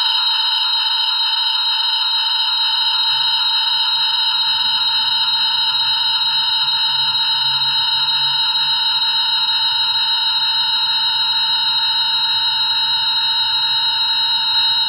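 An unexplained, loud, steady drone of several high tones held without change; a faint low rumble joins it about two seconds in.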